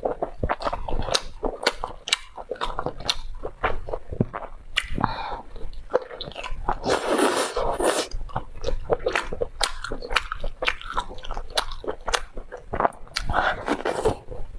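Close-miked eating: crunchy bites and steady chewing with many sharp crackling clicks, and a louder rustling, crunching stretch about halfway through.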